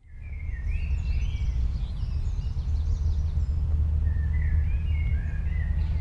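Birds singing in short warbling phrases, once near the start and again about four seconds in, over a steady low rumble that is the loudest sound throughout.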